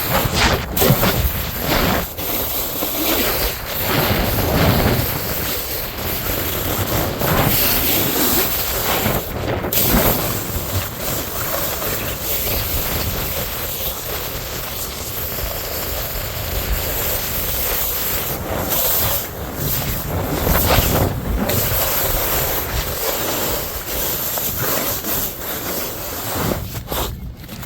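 Continuous rough noise of a snowboard sliding and carving through slushy snow, with wind on the microphone.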